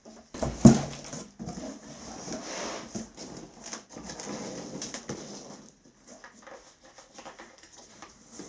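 A cardboard box set down on the floor with a single heavy thump about a second in, followed by irregular rustling, scraping and light clatter of cardboard and polystyrene packing peanuts as things are pulled out of it.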